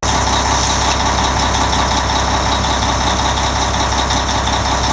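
Fire truck engine idling steadily, a continuous even drone with a thin steady whine on top.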